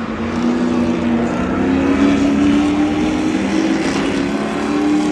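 Stadium trucks' engines running at race speed: a loud, steady engine drone that rises slowly in pitch.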